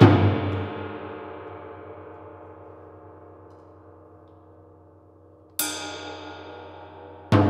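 Gong struck with a mallet, its deep, many-toned ring fading slowly over about five seconds. About five and a half seconds in comes a bright metallic strike, and near the end another deeper strike.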